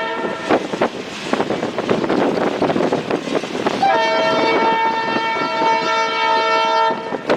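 Passing train's wheels clattering and rattling on the rails, then a multi-note locomotive air horn sounds one long blast from about four seconds in to about a second before the end.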